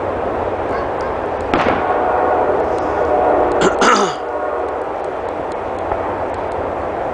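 Fireworks bursting overhead: a bang about a second and a half in and a louder cluster of bangs about four seconds in, over a steady rumble of background noise.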